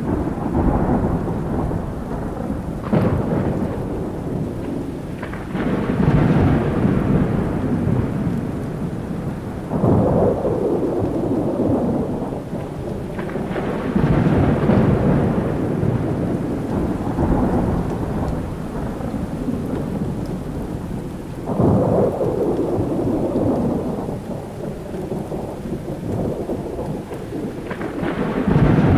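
Thunderstorm: steady rain with repeated rolls of thunder, about six in all. Each roll breaks suddenly and rumbles away over a few seconds.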